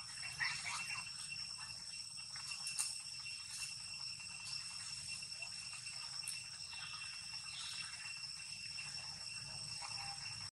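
Steady high-pitched drone of insects, with a few faint brief sounds in the first second.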